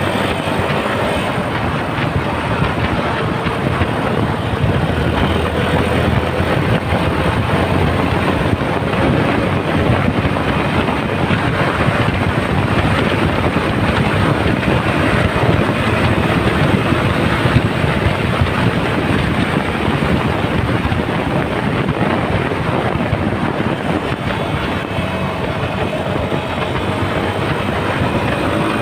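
Yamaha Serow 250's single-cylinder engine running on the move, its pitch drifting slowly up and down, under a steady rush of wind over the microphone.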